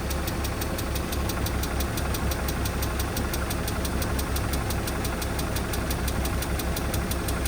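Car engine idling steadily, with a fast, even ticking over a low rumble.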